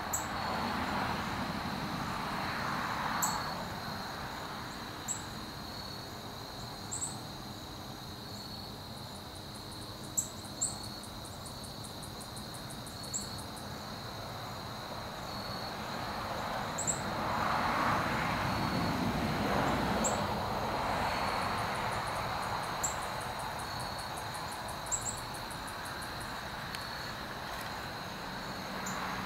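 Evening field ambience: insects chirring in a steady high tone, with short high chirps every second or two and fast trills now and then. Under them runs a low rushing noise that swells early on and again about two-thirds of the way through.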